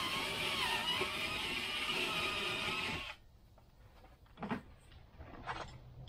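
Cordless drill running steadily as it bores a pilot hole into the boat's wooden stern through a stern light mounting base, stopping abruptly about three seconds in. A few faint clicks and knocks follow.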